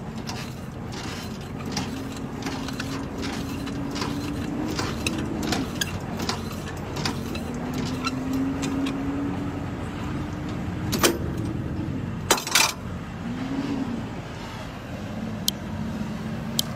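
Semi-trailer landing gear being hand-cranked down: a run of small regular clicks from the crank and gearbox, with two sharp metal clanks about two-thirds of the way through. A steady truck engine hum runs underneath.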